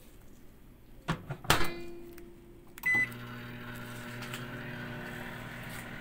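Microwave oven door shutting with a clack and a knock about a second and a half in, one short beep about three seconds in as the oven is started, then the microwave running with a steady hum.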